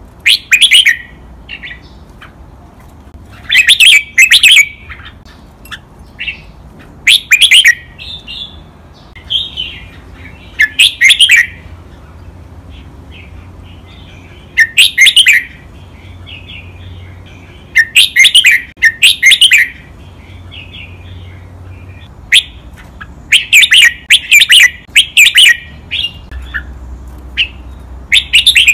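Red-whiskered bulbul singing: loud, short whistled phrases of about a second each, repeated every few seconds and often doubled in quick pairs.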